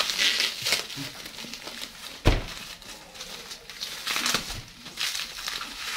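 Plastic packaging wrap crinkling and rustling as it is cut open with scissors and handled, with one loud thump a little over two seconds in.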